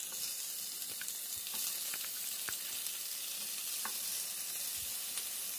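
Abalone frying in melted butter in a nonstick pan: a steady sizzling hiss with a few faint ticks.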